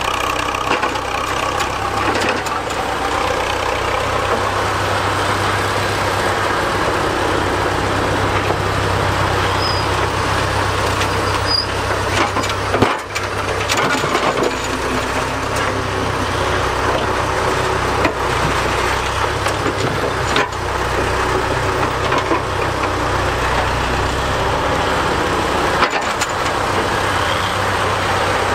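Priestman Tiger vintage cable excavator's engine running steadily as the machine digs, with a few sharp knocks along the way.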